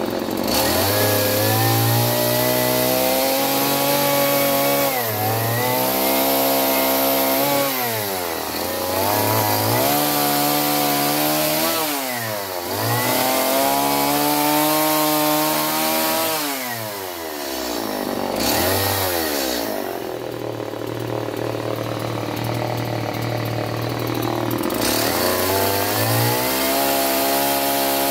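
Stihl two-stroke chainsaw cutting into wood. The engine revs up and drops back again and again as the throttle is squeezed and eased between cuts, with a steadier, lower-revving stretch a little after the middle.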